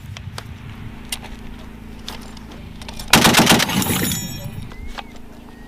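M2 .50 caliber heavy machine gun firing one short burst of several rounds, about half a second long, about three seconds in. This is a controlled short burst. Before it there are a few faint single shots, and a steady low hum runs underneath.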